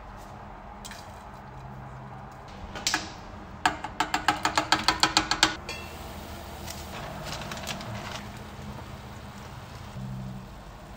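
Broth at a rolling boil in a copper saucepan on a gas stove. A little before the middle comes a fast run of about a dozen sharp taps, some seven a second, and after it a soft bubbling hiss.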